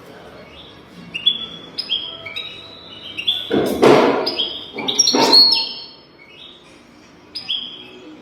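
European goldfinch singing: a string of short, high twittering notes, each dropping in pitch, with two louder, coarse rasping notes about four and five seconds in.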